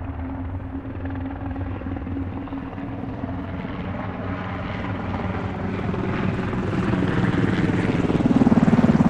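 Helicopter with rapidly pulsing rotors, growing steadily louder as it approaches, then cut off abruptly at the end.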